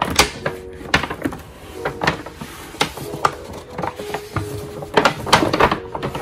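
Stiff paper shopping bag crinkling and rustling as it is handled, with a dense run of crackles near the end as the laptop box slides out of it, over background music.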